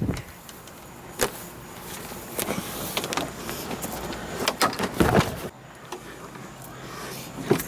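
A series of knocks and clatters over a noisy background, with a low steady hum setting in about five and a half seconds in.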